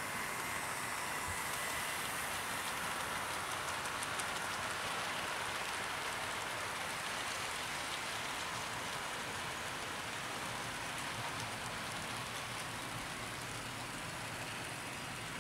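00 gauge model train of vans and wagons behind a Bachmann Class 25 diesel rolling along the track: a steady rushing rattle of small wheels on the rails, with a faint motor whine under it.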